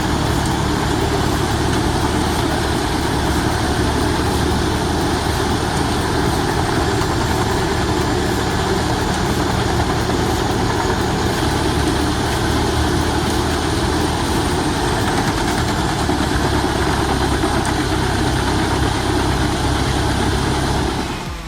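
Heavy diesel engine of a large drum-type timber shredder running steadily, with a dense grinding noise over the low engine drone.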